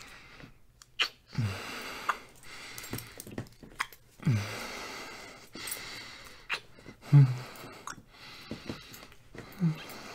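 A man breathing close to the microphone: four breathy exhales, each starting with a short low hum that falls in pitch, with soft clicks between them.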